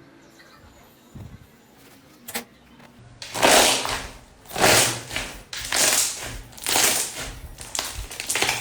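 Slime being pressed and squished by hand: after a quiet start, about five loud noisy squishes come roughly one a second, beginning about three seconds in.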